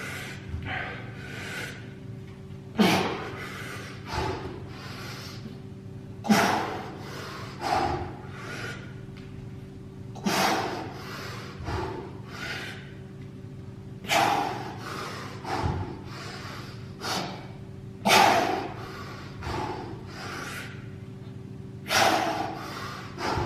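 A man's heavy, forceful breathing from exertion during dumbbell clean and jerk reps: a big breath about every four seconds, each followed by a few smaller ones. A faint steady hum runs underneath.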